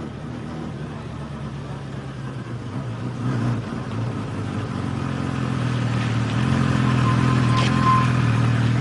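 Motor vehicle engine running steadily at an even pitch, growing louder over the seconds as it draws nearer.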